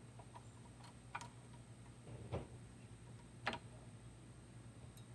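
Faint clicks and taps of small metal parts being handled, four or so separate ones, the loudest about two and a half seconds in, as the throttle linkage is fitted back onto a lawn mower carburetor.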